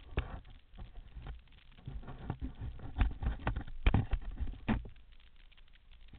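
Wind buffeting the microphone of a pole-held camera while riding a longboard, over the rumble of its wheels on asphalt, with irregular knocks and surges loudest about three to four seconds in.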